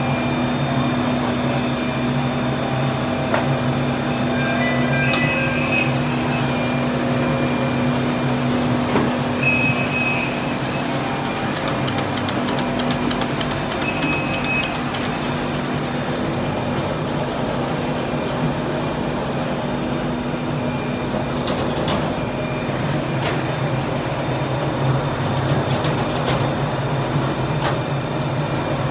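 Wohlenberg Quick Binder perfect-binding machine running: a steady mechanical hum with repeated sharp clicking and clatter from its moving parts.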